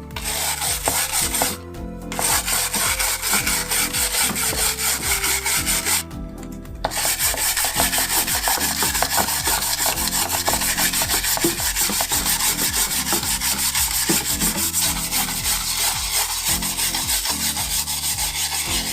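Fast, continuous back-and-forth scrubbing of electrolysis-loosened paint off a steel steam engine part, pausing briefly twice.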